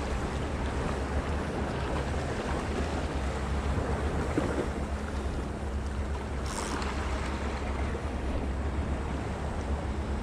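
Sea waves washing against rocks, a steady rush, with wind buffeting the microphone in a low rumble. A brief hiss stands out about six and a half seconds in.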